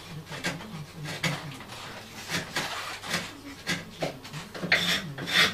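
Short, irregular scraping strokes of a small hand tool working at a wooden music box; the last two, near the end, are the loudest. A low wavering hum runs underneath.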